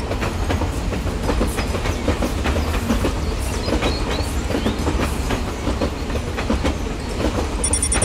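Toy steam locomotive running along a plastic track while pulling wagons: a steady running rumble with irregular clicking of the wheels over the track.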